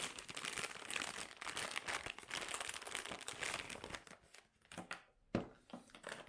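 Packaging crinkling and rustling as the new replacement freezer fan motor is handled and unwrapped, stopping about four seconds in. A few light clicks and one sharp knock follow near the end.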